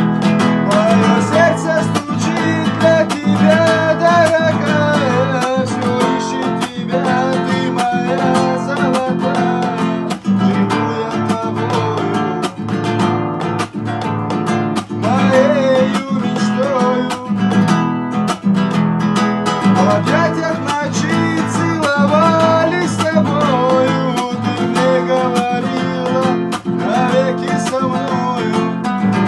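Acoustic guitar playing a melody over chords.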